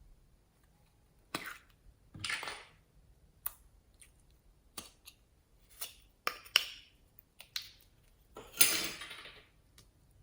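Slime being squeezed and stretched by hand, giving a series of irregular sharp pops and clicks from trapped air, with a few longer crackling squelches. The longest and loudest comes near the end.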